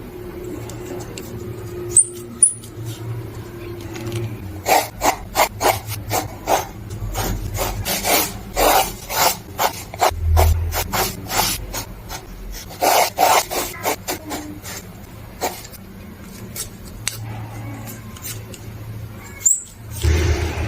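Drawing tool scratching and rubbing across paper in quick runs of short strokes, loudest through the middle, with a few brief high squeaks.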